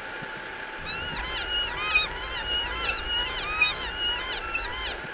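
A rapid run of short high-pitched calls, each rising then falling in pitch, about three or four a second and overlapping, starting about a second in over a low hum.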